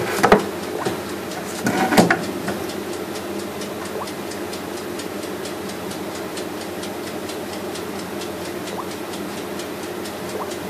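A steady mechanical hum with a fast, even ticking of about five ticks a second, broken by two louder clatters, one at the start and one about two seconds in.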